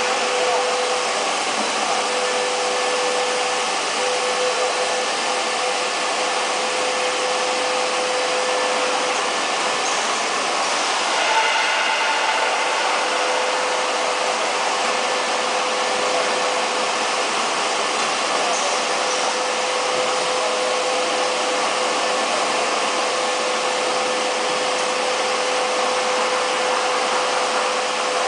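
Steady din of wire and cable factory machinery: an even rushing noise with a steady mid-pitched tone running through it.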